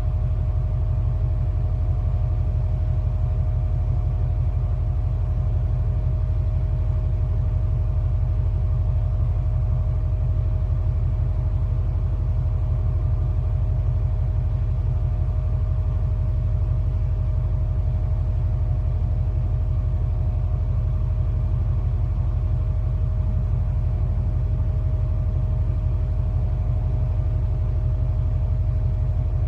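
Cargo ship's engine running steadily: a deep, even rumble with a fast regular throb and a steady mid-pitched hum over it.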